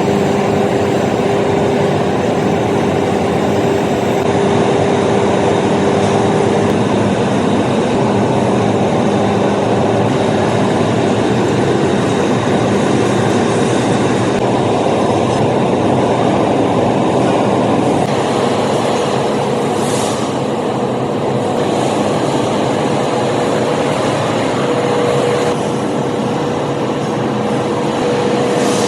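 Workshop machinery running steadily, a lathe among it: a loud, even mechanical din with a held hum whose pitch changes partway through, and a couple of brief hissing sweeps near the end.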